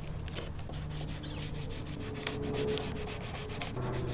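Plastic squeegee rubbing a vinyl decal down through its transfer tape onto a fiberglass body-kit side skirt, in many short scraping strokes.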